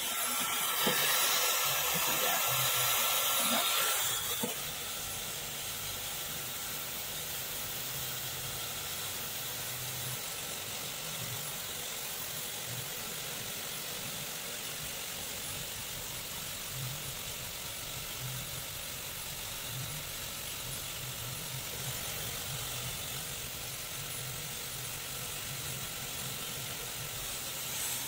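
Dyson Supersonic hair dryer blowing on its lowest airflow setting with heat on 3, a steady rushing hiss of air. It is louder for about the first four seconds, then settles a little softer and stays even.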